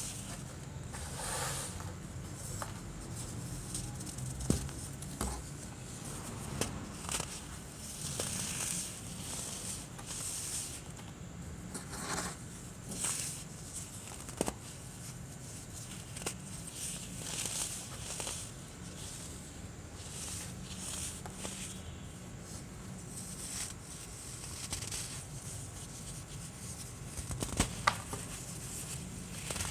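Compressed baking soda being crushed and crumbled by hand: soft crunching in repeated bursts, with a few sharp cracks.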